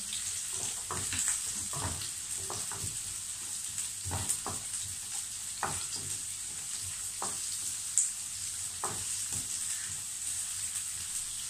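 Onions and carrots sizzling in olive oil in a frying pan, with a steady hiss. A wooden spoon scrapes and knocks against the pan at irregular moments as they are stirred, with the sharpest knock about eight seconds in.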